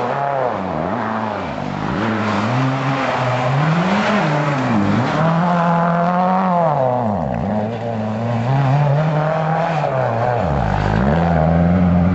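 Rally car engine at high revs, its pitch falling and climbing again several times as the driver comes off and back on the throttle.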